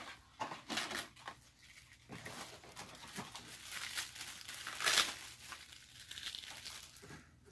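Plastic and cardboard packaging crinkling and rustling as it is handled and pulled open. The sound comes in irregular bursts, the loudest about five seconds in.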